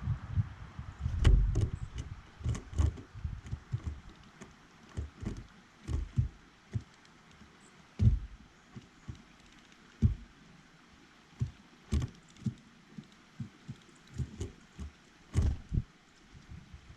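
Irregular knocks and taps close to the microphone, from birds at a seed feeder, with wind buffeting the microphone in the first two seconds.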